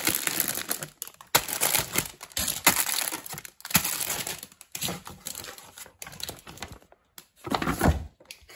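Plastic bags crinkling and rustling as a hand sorts through bagged model-kit runners in a cardboard box, in irregular bursts with short pauses.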